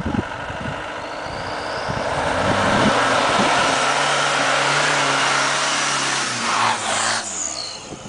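Land Rover Defender engine pulling hard under load as it charges through deep snow, with the rushing of tyres churning and spraying snow; it passes close by near the end and its engine note falls away.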